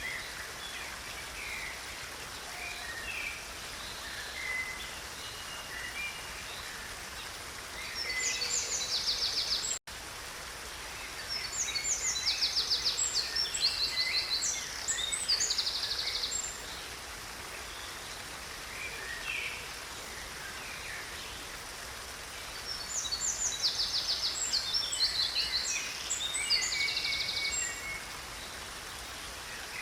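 Steady rushing of water in a stream, with a bird singing high, fast trilled phrases in three long bouts. All sound cuts out for an instant about ten seconds in.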